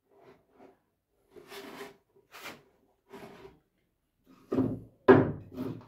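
Wooden pieces being handled: a few faint short scrapes and rubs of wood on wood, then two sharp knocks near the end as a wooden block is picked up and set down.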